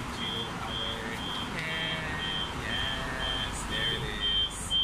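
A high electronic beep repeating steadily about twice a second, over people talking.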